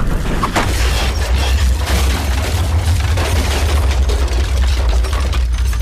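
Loud, deep continuous rumble of a volcanic eruption, with crackles running through it.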